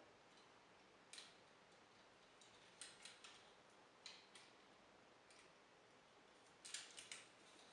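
Faint, scattered clicks and taps of hard plastic toy parts as the MakeToys Galaxy Meteor figure's gun is fitted into its hand, the gun's handle tab being slotted into the palm. There are single clicks about a second in and around four seconds in, a few close together around three seconds, and a quick cluster near the end.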